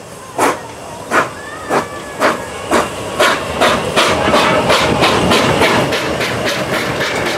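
Hunslet Austerity 0-6-0 saddle-tank steam locomotive pulling away with a train, its exhaust chuffs coming quicker as it gathers speed, with steam hissing from the cylinder drain cocks. From about four seconds in, as it draws level, the beats run together into a louder, steady rush of steam and wheel noise.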